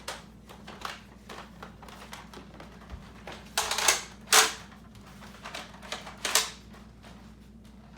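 Nerf dart blaster being handled and fired: scattered light plastic clicks, with a few louder sharp pops about three and a half to four and a half seconds in and again a little after six seconds.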